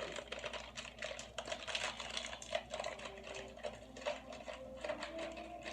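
Plastic packaging of break-apart cookie dough crinkling and crackling as it is handled and pulled open, a dense run of small irregular clicks.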